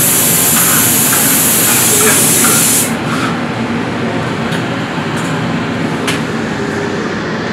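Loud sizzling hiss from the hot flat griddle, cutting off abruptly about three seconds in. After that comes a lower steady hum with a few short clinks of the steel spatula as the chopped kottu paratha is scraped off the griddle into a bowl.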